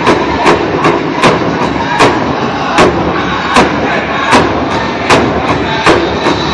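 Powwow big drum struck in a steady, even beat, about two and a half strokes a second with every other stroke louder, with the drum group's singers over it, playing for the women's traditional dance.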